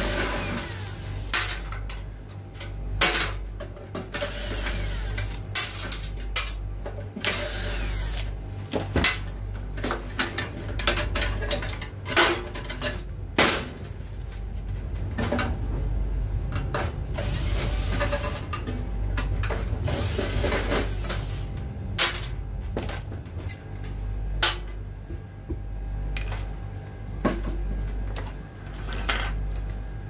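Cordless drill-driver running in short bursts, backing screws out of a microwave oven's magnetron mounting, with sharp knocks and clanks of metal parts being handled as the magnetron is worked loose. A steady low hum runs underneath.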